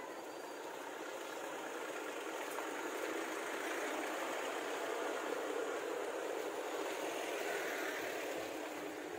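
Street traffic: a car driving past, its engine and tyre noise swelling as it comes close in the middle and easing off near the end.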